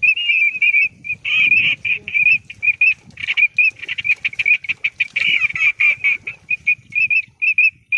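Short, high duck calls repeating rapidly, several a second, over the splashing of a person wading through shallow water, the splashing heaviest in the middle.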